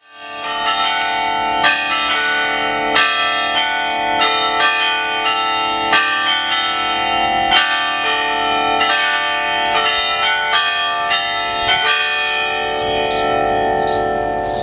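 Church bells ringing, struck in a quick run of about two strokes a second with long overlapping ringing tones; the strokes stop about twelve seconds in and the bells ring on, fading.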